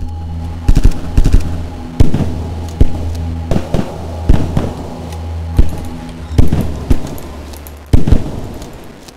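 A string of about a dozen sharp gunshots at irregular intervals, over a low steady music drone.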